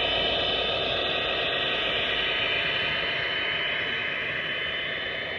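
HO scale model diesel locomotive and train running past: a steady hissing running noise with a thin, steady high whine, slowly fading near the end.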